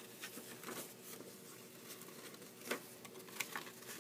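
Faint rustles and light taps of a sheet of paper being handled and folded, the loudest tap about two and three-quarters seconds in, over a faint steady hum.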